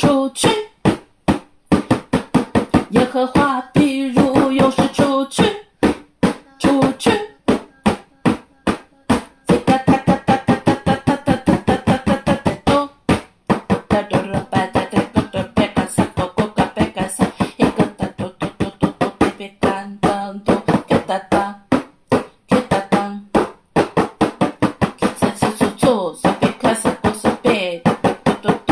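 A single voice praying in tongues: rapid, rhythmic strings of percussive nonsense syllables, about four a second, half spoken and half chanted.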